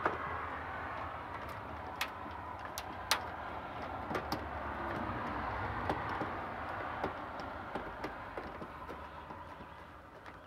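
Scattered sharp clicks and ticks of a screwdriver working the screws of a plastic ceiling-mounted camera base, over steady background noise that fades near the end.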